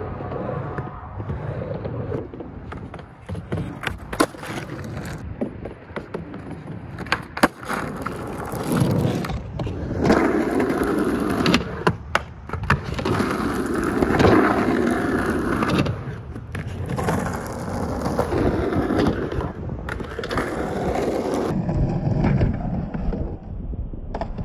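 Skateboard wheels rolling over concrete and up the ramps, broken several times by sharp clacks of the board popping and landing.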